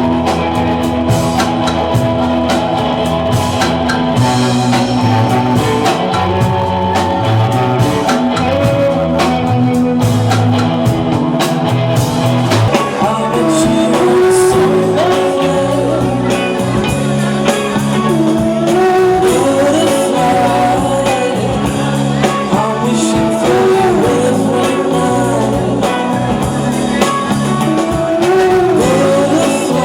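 Rock band music with guitar and drum kit. It is mostly instrumental at first, and a sung lead vocal comes in about halfway.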